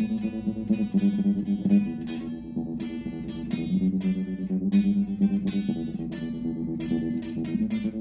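Stratocaster-style electric guitar played through a Fender combo amplifier: a steady run of picked notes and chords, several attacks a second, in a slow jam.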